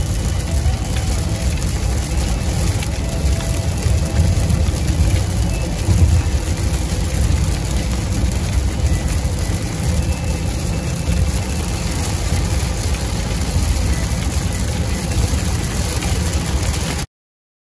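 Car driving on a rain-soaked highway, heard from inside the cabin: steady road and tyre noise, strongest low down, with rain on the car. It cuts off suddenly near the end.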